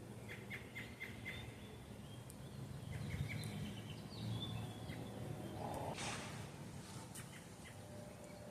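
Birds chirping: a quick run of short chirps at the start and higher twittering a few seconds in, over a low rumble. A brief rustle about six seconds in.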